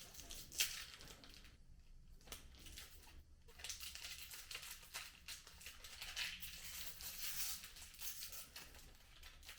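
Crinkling and tearing of plastic candy packaging as a Mentos pack is unwrapped, an irregular rustle with two short pauses early on.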